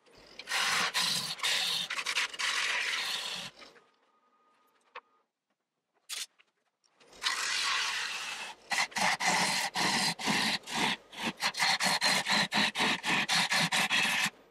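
Bowl gouge cutting wet green maple on a spinning square bowl blank on a wood lathe, ribbons of shavings tearing off with a scraping hiss. The cutting comes in two bursts with a quiet pause of about three seconds between them, and the second burst breaks into rapid pulses as the tool is worked.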